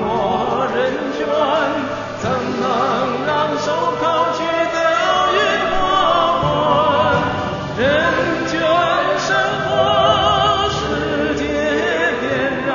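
Music with operatic singing: sustained voices with a wide vibrato, several lines sounding together.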